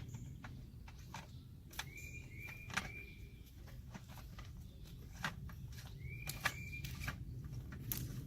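Scattered clicks and knocks of PVC pipe fittings being handled and test-fitted, with a few short high squeaks, over a low steady hum.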